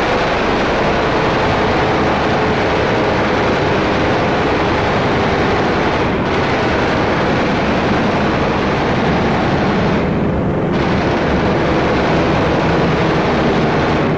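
Wartime film sound effects of aircraft engines and gunfire, blended into one loud, steady, dense noise that thins in the treble twice for a moment.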